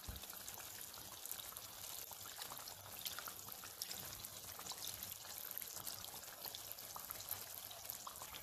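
Pieces of gnocco fritto dough frying in hot peanut oil: a soft, steady sizzle with many fine crackles.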